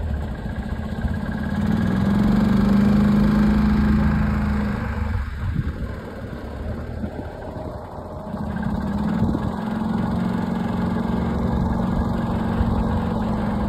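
A vehicle engine running steadily, growing louder about two seconds in, easing off for a few seconds in the middle, then picking up again and holding steady.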